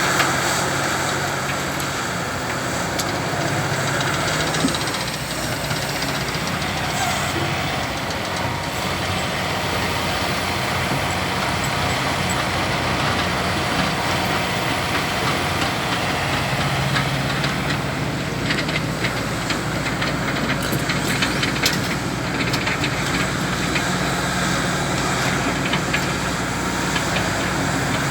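Diesel engine of a Caterpillar 352F hydraulic excavator running steadily at work, with scattered clicks and clanks, busiest around two-thirds of the way through.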